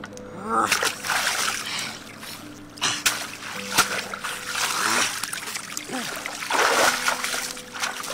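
River water splashing and sloshing around a person wading through it waist-deep, in several surges of a second or two each.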